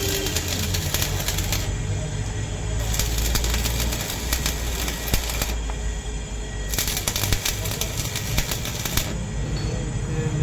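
Stick arc welding on a steel truck chassis rail: a continuous crackle and sizzle from the arc over a steady low hum, with the sharpest top of the crackle dropping away briefly about three times.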